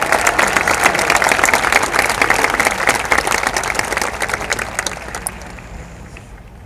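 Stadium crowd applauding, a dense patter of many hands clapping that dies down over the last two seconds.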